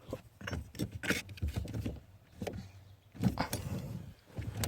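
Irregular knocks, clicks and rubbing from hands working a rubber sport pad onto a car's brake pedal as it is pushed and repositioned to clip into place.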